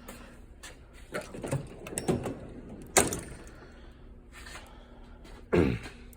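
Small metal impact sockets knocking and clicking as they are handled and set into a tool box, with a sharp click about three seconds in. A heavier sliding thud near the end, as a tool box drawer moves.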